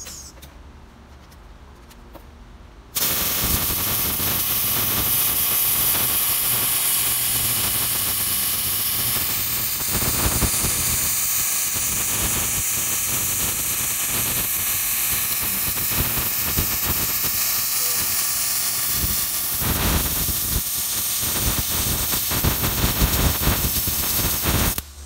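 Wire-feed welder arc burning on a steel bed mount, turned up hot: a loud, steady crackling sizzle with spatter kicking off. It starts about three seconds in, runs for over twenty seconds and cuts off suddenly near the end.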